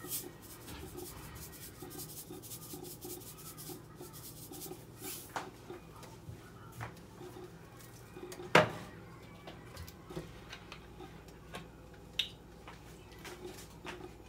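Light kitchen clatter: scattered small clicks and knocks of dishes or pans over a low room hum, with one sharp knock about eight and a half seconds in and a smaller one near twelve seconds.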